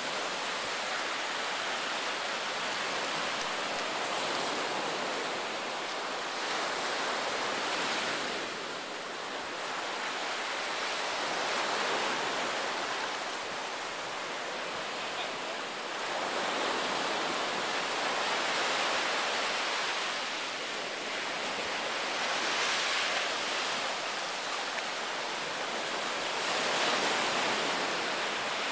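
Surf washing up a sandy beach: a steady rush of small breaking waves that swells and eases every few seconds.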